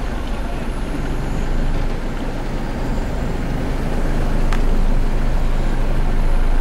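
Steady engine and road noise of a car being driven, heard from inside the cabin, growing somewhat louder in the second half. There is a single sharp click about four and a half seconds in.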